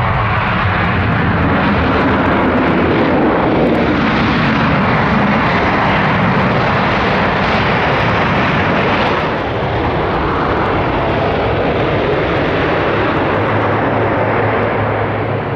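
A Boeing 737's twin jet engines running loudly as the airliner rolls along the runway, a steady, dense roar that dips briefly about two-thirds of the way through.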